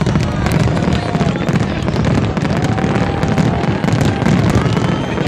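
Fireworks going off in a dense, unbroken barrage: overlapping booms and crackles with no pause between them.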